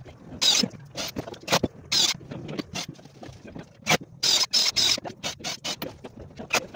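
Irregular knocks and clatter with several short squeaky scrapes, from work on a plywood wardrobe cabinet.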